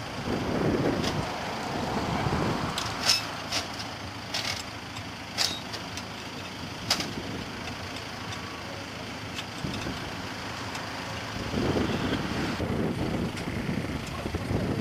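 Road traffic on a bridge: vehicles passing, swelling and fading twice, with a few sharp clicks or knocks in between.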